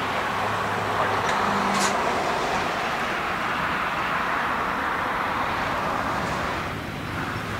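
Boeing 777-300ER's GE90 jet engines heard from a distance as a steady rush while the airliner rolls along the runway for takeoff. Two brief clicks come about a second and a half in.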